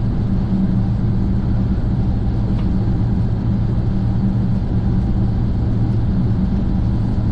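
Airbus A400M's four Europrop TP400-D6 turboprops with eight-bladed propellers, heard from inside the aircraft on approach: a loud, steady drone with a low propeller hum.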